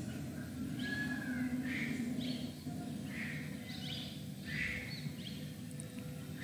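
Birds chirping, a string of short calls one after another, over a low steady hum.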